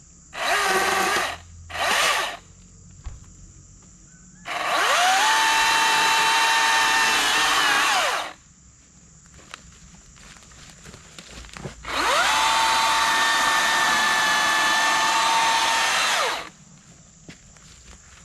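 Milwaukee M18 Fuel battery-powered top-handle chainsaw: two short trigger blips, then two runs of about four seconds each. On each run the electric motor's whine rises quickly to a steady pitch and winds down when the trigger is released.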